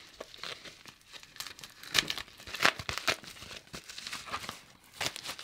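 Packaging bag crinkling and tearing as it is opened by hand, in irregular crackles that are loudest about two to three seconds in.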